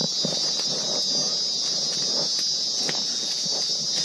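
Loud, steady high-pitched insect drone, cicada-like, with irregular soft footsteps on the forest trail beneath it.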